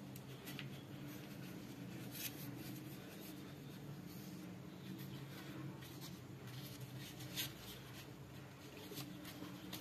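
Faint scratching and scraping of hand food preparation: a plastic spatula working damp rice flour in a metal tray, then hands handling a leaf. A few sharper clicks stand out, about two seconds in and again past seven seconds, over a steady low hum.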